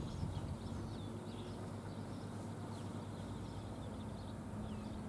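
Small birds chirping in short, repeated calls, over a low, steady hum.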